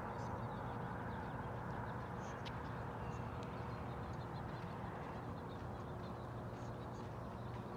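Outdoor dawn ambience: faint, scattered short bird chirps over a steady low background rumble, with a faint steady hum underneath.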